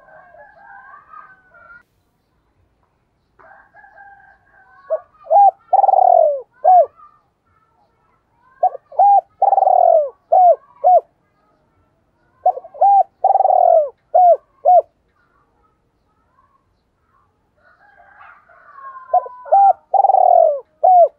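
Spotted dove cooing in the 'two-tail' (hai hậu) style: four phrases, each of short coos around one longer, louder, falling coo and ending in two short coos. Fainter, higher bird twittering comes before several of the phrases.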